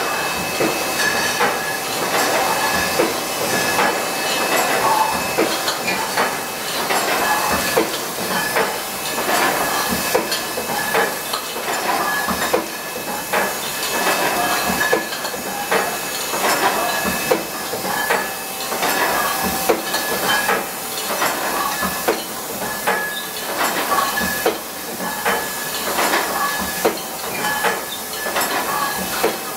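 Wine bottling line running: empty glass bottles clinking and knocking against each other and the rotary rinser's grippers and guides, many irregular clinks, over a steady hiss and a faint machine whine.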